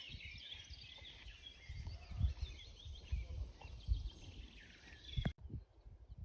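Small birds chirping and singing over gusts of wind rumbling on the microphone. The birdsong stops abruptly a little after five seconds in, leaving only the wind.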